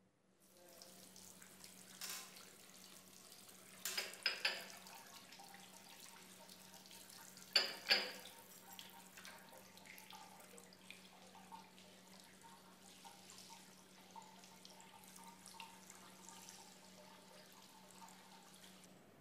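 Water running from a tap into a washbasin as hands are washed under it, with a few brief louder splashes, the loudest a pair about eight seconds in.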